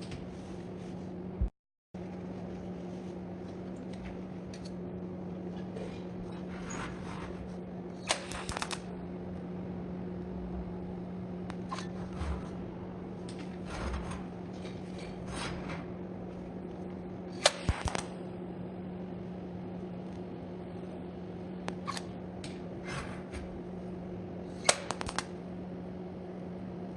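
Short sharp metallic clicks and taps every few seconds, with a few louder clusters, from 6 mm iron round bar being handled and worked, over a steady low hum.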